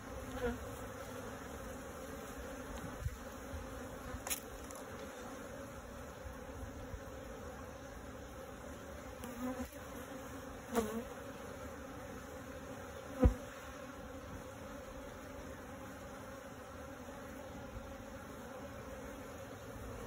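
Honeybees buzzing in a steady hum around a comb lifted out of a barrel top-bar hive, the colony stirred up by the opening, with single bees buzzing past close by now and then. A short loud thump about thirteen seconds in.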